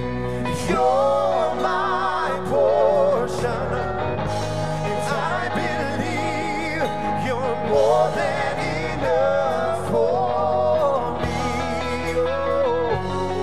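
Live band performance: a male and a female singer sing with wide vibrato over electric guitars, keyboard and drums.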